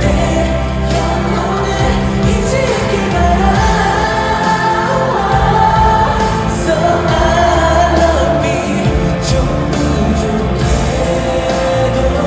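Male solo singer performing a slow pop ballad live into a microphone over an amplified band backing, with long held notes, heard through the arena's speakers.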